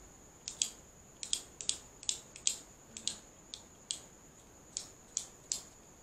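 A home-made metal speargun trigger mechanism clicking as its trigger and safety lock are worked by hand. There are about fifteen light, sharp clicks, singly and in quick pairs, at irregular spacing.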